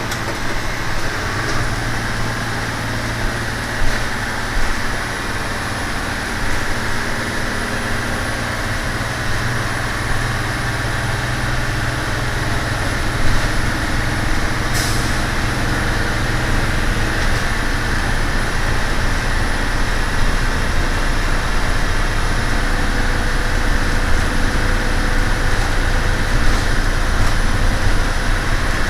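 A 1999 Amtran school bus's diesel engine running under way, with road noise: a steady low drone that grows gradually louder, with a few brief knocks and rattles.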